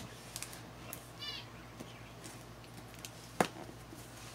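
Scissors slitting the packing tape on a cardboard box, with small clicks and scrapes and one sharper snap about three and a half seconds in. A short high chirp sounds about a second in.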